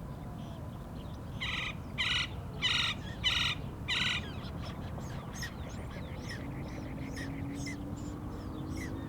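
Gila woodpecker giving a series of five harsh calls, about one every 0.6 seconds, in the first half, with fainter chirps from other birds after.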